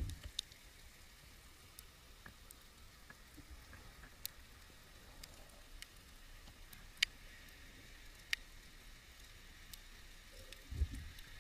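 Faint underwater ambience picked up by a diver's camera: a steady hiss with scattered sharp clicks, and low thumps at the start and near the end, the one near the end the loudest.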